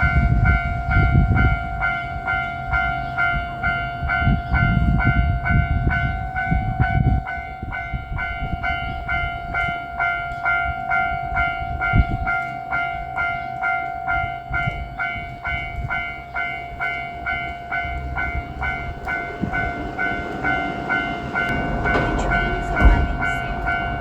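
Japanese level-crossing alarm ringing steadily with an evenly repeating electronic bell, about two and a half strikes a second. Under it, a heavy low rumble from a JR Freight EF210 electric locomotive and its freight train passing over the crossing fills the first several seconds, and the rumble builds again near the end.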